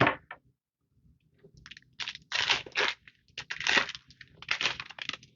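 Foil booster pack wrapper crinkling and crunching in several irregular bursts as it is handled and opened by hand.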